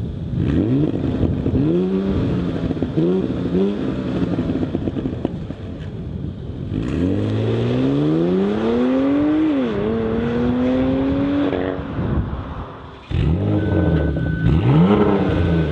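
A sporty SUV's engine and exhaust: two short throttle blips, then a long full-throttle pull with the pitch climbing, dipping briefly at a gear change and climbing again before backing off. After an abrupt cut, more revs rise and fall.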